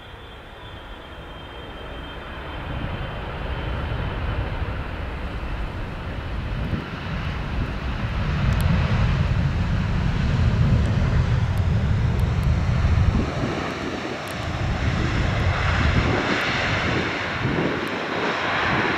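Jet airliner passing: the low engine rumble grows louder over the first eight seconds or so and stays loud, with a rushing hiss coming up strongly in the last few seconds.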